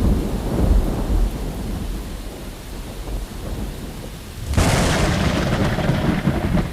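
Thunder: a low rumble dies away, then a sharp thunderclap breaks about four and a half seconds in and rumbles on for about two seconds.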